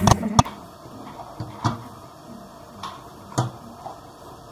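A few sharp clicks and knocks: two close together at the start, then single ones spread about a second apart, over faint background noise.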